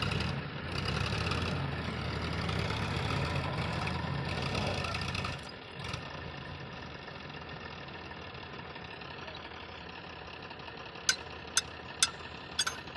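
Diesel engine of a heavy machine running loud and low, then dropping sharply to a quieter steady running sound about five seconds in. A few sharp clicks come near the end.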